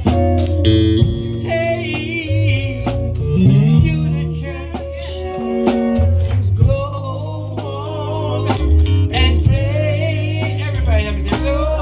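Live gospel band music: an electric bass playing low notes under electric guitar, with a wavering singing voice over it and a steady beat of sharp percussive clicks.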